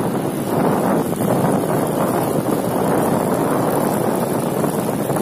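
Wind rushing over the microphone of a camera moving at riding speed alongside road cyclists: a steady, loud buffeting noise with no distinct events.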